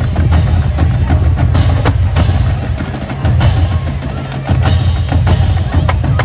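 Marching band playing, with its drums and percussion strongest and sharp strikes standing out every second or so.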